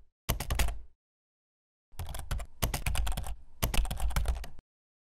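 Computer keyboard typing sound effect: rapid runs of key clicks. A short run comes at the start, then after about a second's pause two longer runs follow, stopping about half a second before the end.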